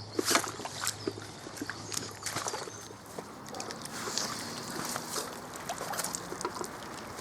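Lake water sloshing and dripping as a carp weigh sling is dunked and lifted out, with scattered small knocks and splashes of handling.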